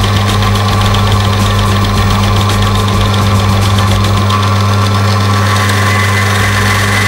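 Electric motor of a bench oil friction-test machine running with a steady hum, its shaft spinning against a bearing in mineral engine oil. About five seconds in, after the first weight goes on the lever arm, a high-pitched screech sets in and grows louder: the oil film is breaking down under the load of one weight, rated at 2000 psi.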